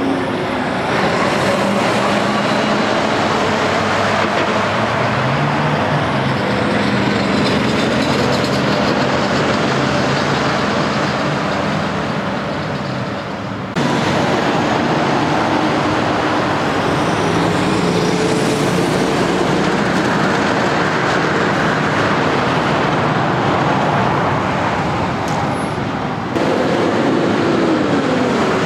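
Road traffic passing, with the diesel engines and tyre noise of big-rig trucks; the sound changes abruptly twice, about halfway and near the end. Near the end a truck's engine note drops in pitch as it pulls by.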